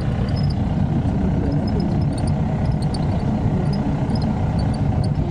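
Safari jeep's engine running as it drives along a dirt track, with a steady low noise and short, faint high-pitched blips scattered over it.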